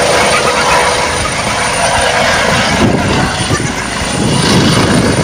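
Helicopter descending to land, its rotor and engine noise loud and steady, with a low throbbing from the rotor growing about three seconds in.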